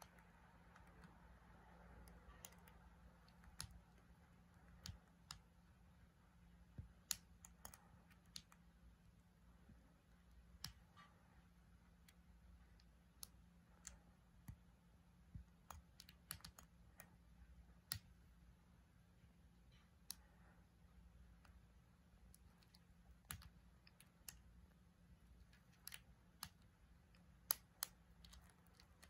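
Irregular sharp clicks and ticks from a Sulawesi giant stag beetle (Dorcus titanus typhon) and a Mesotopus tarandus stag beetle grappling: hard mandibles, shells and clawed legs knocking against each other and the driftwood. The clicks come singly and in short clusters, with the loudest near the end.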